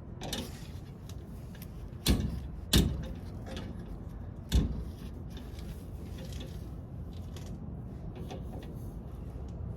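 Three sharp knocks of metal parts being handled and set in place during a leaf spring replacement, two close together and a third about two seconds later, over a steady low rumble.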